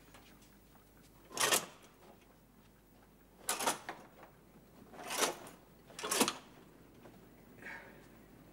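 Curtains being pulled open along their rail: four short sliding swishes, the first on its own and the last two close together.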